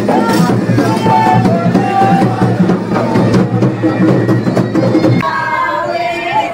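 Loud drum-driven procession music with rhythmic percussion. It cuts off abruptly about five seconds in, giving way to crowd voices and singing.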